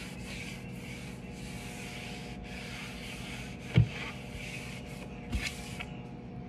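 Clothing rubbing against a phone's microphone, a hissing rustle in stretches with short breaks, with a sharp knock about four seconds in and a lighter one about a second later, over a steady low hum.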